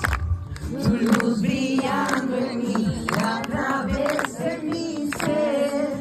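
A group of male and female voices singing a worship song together.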